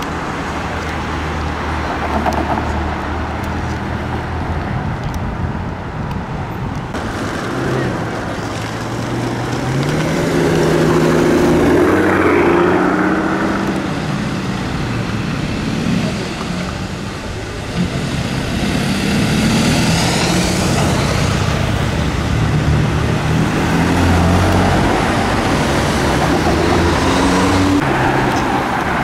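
Black Mercedes-AMG S-Class coupé's engine accelerating away from a standstill, its note climbing several times as it pulls through the gears, over steady city traffic noise.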